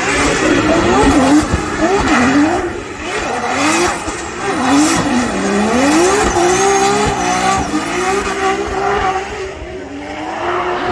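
Racing car engine revving hard, its pitch swinging up and down again and again as the throttle is blipped and released, with some tyre squeal.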